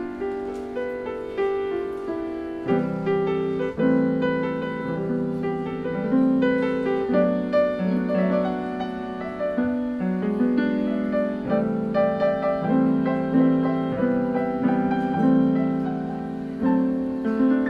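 Grand piano being played: chords and a melody line, each note struck and then ringing out and fading.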